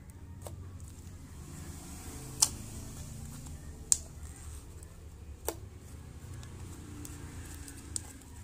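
Shampoo glitter slime being pressed and stretched by hand, giving about five sharp clicks spaced irregularly a second or two apart over a low steady background hum.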